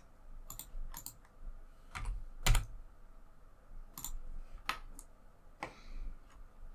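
Computer keyboard keys and mouse buttons clicking, about eight separate presses at irregular intervals, the loudest about two and a half seconds in.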